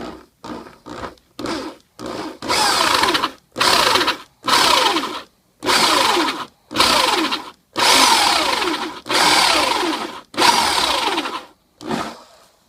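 Electric drill with a 1-inch bit boring into the glued-in knot of a shaving brush handle, run in about a dozen bursts that start short and then last about a second each. The pitch falls within each burst as the bit bites into the hair and glue.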